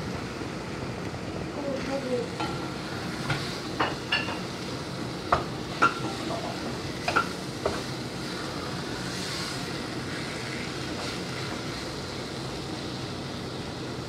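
Ground meat with tomato paste, peppers and onion sizzling steadily in a pot on the stove while a wooden spoon stirs it, knocking against the pot several times in the first half.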